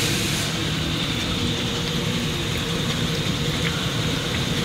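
Steady mechanical drone and hiss of paper core production machinery running, with a brief high hiss fading out at the very start and a faint click near the end.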